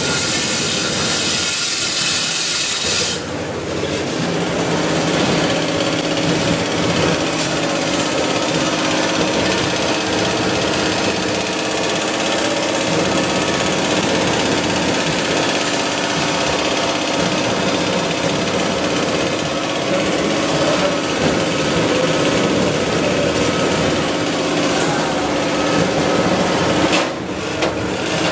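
Steady, loud din of metalworking machinery in a steel rod and wire workshop: motors running continuously with a constant hum, and a brief dip about three seconds in and again near the end.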